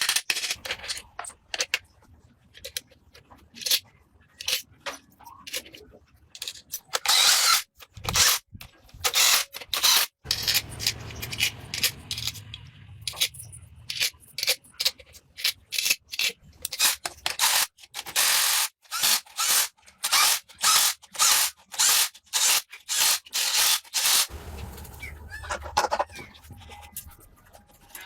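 Hand sanding or scraping on a workpiece: quick back-and-forth abrasive strokes in irregular runs, at times about three a second.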